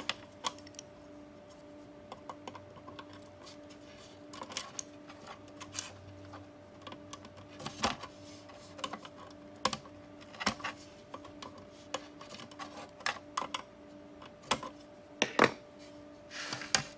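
Irregular small clicks and clacks of hand tools and parts against a metal equipment chassis while a fan is fitted, a few louder knocks among them, over a faint steady hum.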